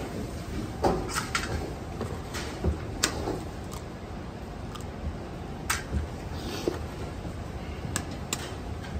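Raw eggs being cracked one after another: a series of sharp clicks as the shells are struck and broken, with softer knocks in between, over a steady background noise.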